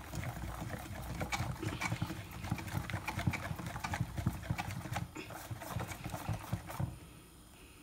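Wire whisk beating thick batter in a stainless steel bowl: rapid, irregular strokes of the wires against the bowl and through the batter, stopping about seven seconds in.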